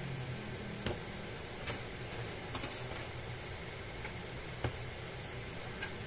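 Steady background hiss with a few light, brief taps scattered through it.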